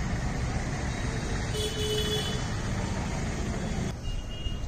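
Street ambience: a steady low rumble of traffic with a short horn-like toot about a second and a half in.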